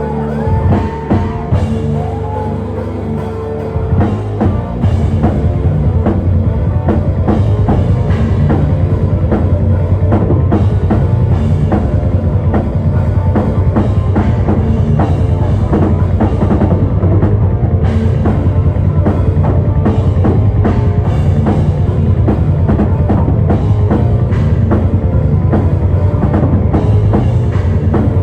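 Live rock band playing loud. A held note with scattered drum hits gives way, about five seconds in, to the full band with fast, steady drumming.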